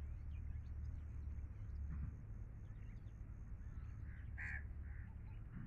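Crows cawing in alarm at a person close by: a few short caws in the second half, the loudest about four and a half seconds in, over a steady low rumble.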